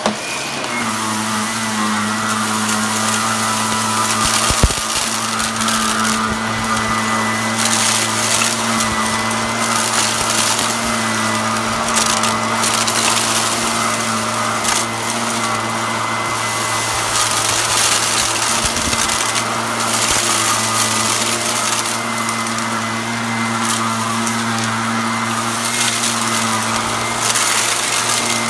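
Upright vacuum cleaner running steadily while it sucks dry rice and uncooked macaroni off a rug. The grains crackle and rattle through the machine over the motor's hum, in stronger stretches now and then.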